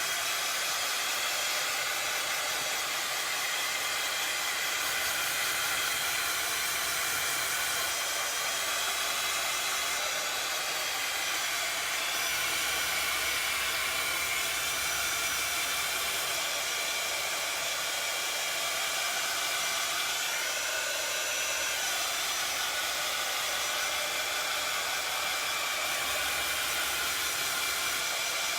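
Craft heat tool blowing steadily, a constant airy hiss, drying acrylic paint on a stencilled surface.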